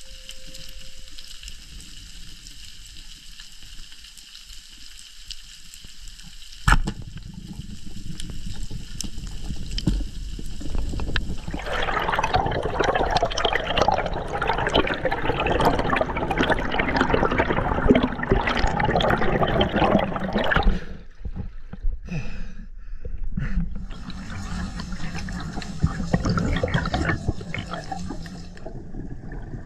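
Underwater sound: one sharp snap about seven seconds in, as of a speargun firing, then a low rumble that builds into loud rushing, bubbling water noise. The noise breaks off briefly a few times and comes back near the end.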